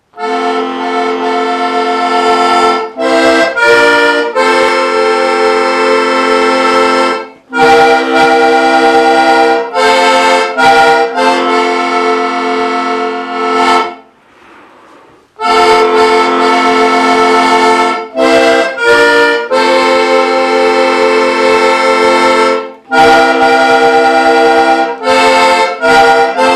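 Diatonic button accordion (heligónka) playing a folk tune in long held chords, phrase by phrase, with short breaks between phrases and one pause of about a second and a half midway.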